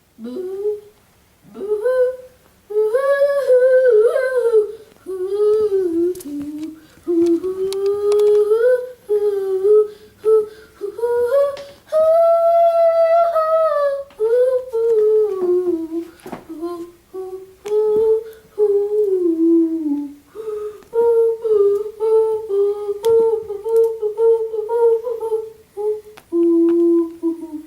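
A person humming a tune, the melody wandering up and down with short breaks and a longer held high note about twelve seconds in.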